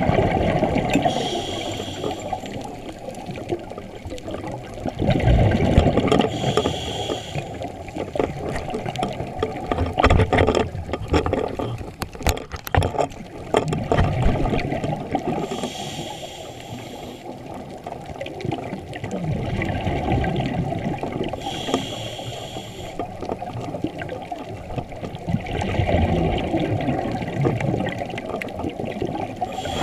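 Scuba breathing through a regulator: about five slow breaths, each a hissing inhale followed by a loud, low rush of exhaled bubbles. A short run of clicks about twelve seconds in.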